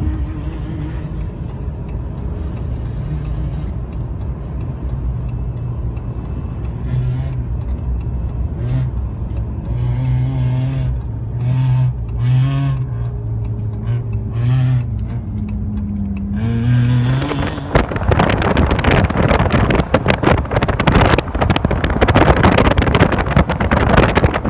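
Road rumble and engine drone heard inside a moving vehicle's cab, with an engine note that rises and falls. About two-thirds of the way through it switches abruptly to loud wind buffeting the microphone outdoors.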